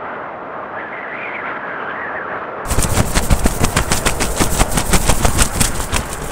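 A rapid run of sharp cracks, roughly ten a second, starts abruptly about two and a half seconds in over a steady rushing noise.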